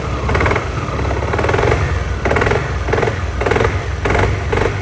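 Dafra Maxsym 400i scooter idling, with a knocking from the CVT repeating about twice a second over the engine's steady rumble. It sounds like the engine is knocking, but the noise comes from the variator sliders, which have play in them, along with worn rollers.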